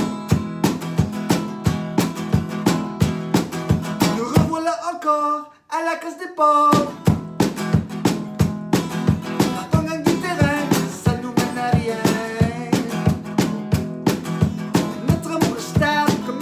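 Steel-string acoustic guitar strummed in a steady rhythm of about three strokes a second. About four and a half seconds in the strumming breaks off for roughly two seconds, leaving a few sliding pitched notes, then it picks up again.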